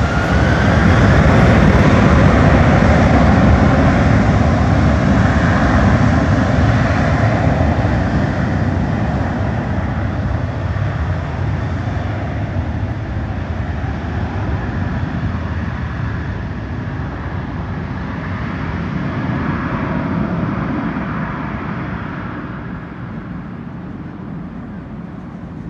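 A jet airliner's engines, loud in the first few seconds and then slowly fading as the aircraft moves away.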